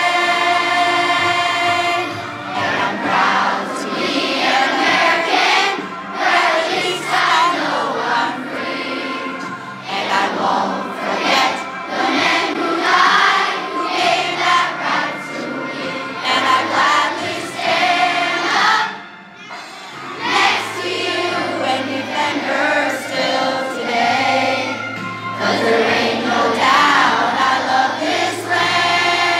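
A large group of children singing a song together over a musical accompaniment, with a short break in the singing about 19 seconds in.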